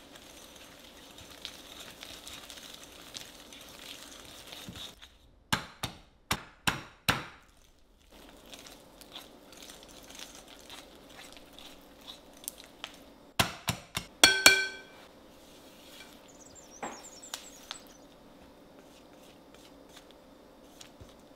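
Wire balloon whisk beating a butter and egg mixture in a glass mixing bowl: soft steady scraping, broken by two quick runs of sharp clinks of the wires against the glass, about five seconds in and again about thirteen seconds in. The second run leaves the glass bowl ringing briefly.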